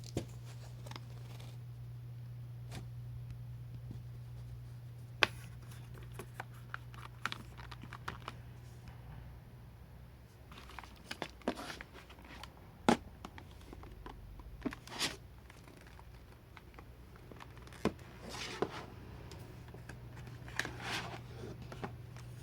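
Scattered, irregular key clicks from a Yunzii Keynovo IF98 mechanical keyboard with brown switches, single presses and short clusters rather than steady typing, mixed with a few brief scraping or rustling noises. A steady low hum runs underneath.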